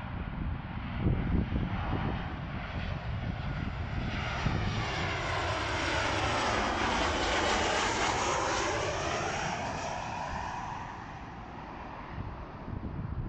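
Jet cargo airliner on landing approach passing close overhead. Its engine noise swells to a peak midway and then fades, with a sweeping whoosh in tone as it goes over.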